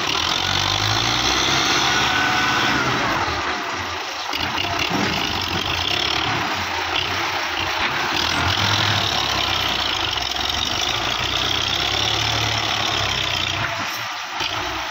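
Belarus tractor's diesel engine running under load as it tries to haul a loaded sand trolley through mud, the level dipping briefly about four seconds in and again near the end.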